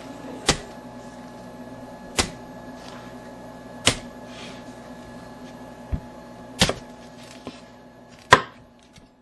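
A series of about six sharp knocks, roughly one every one and a half to two seconds, the last one the loudest, over a steady hum.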